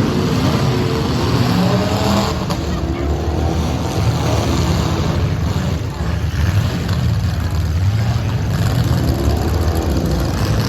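Several demolition derby car engines running hard at once and revving, their pitch rising and falling, with a single sharp knock about two seconds in.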